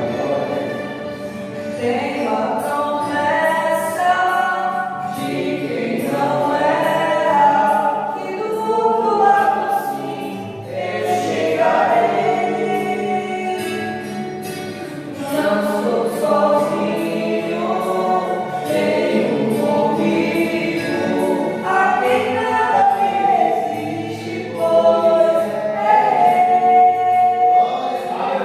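A choir singing a gospel hymn, several voices holding a melody line together.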